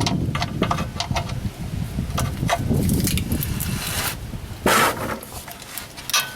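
Handling sounds from oil-change work: irregular clicks, knocks and rustling, with one louder clatter about two-thirds of the way through.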